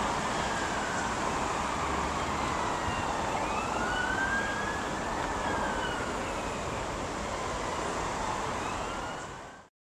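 An emergency-vehicle siren wailing, its pitch rising and falling slowly, over steady road traffic noise. The sound cuts off abruptly shortly before the end.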